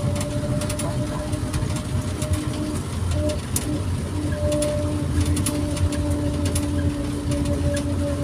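Cabin noise of a rubber-tyred Mitsubishi Crystal Mover light-rail car running along its guideway: a steady low rumble with a humming motor whine on two steady tones, and scattered faint clicks.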